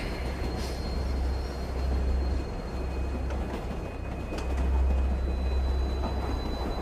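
Subway train running, heard from inside the car: a steady low rumble under rail noise, with a faint thin high whine, the rumble swelling a little past the middle.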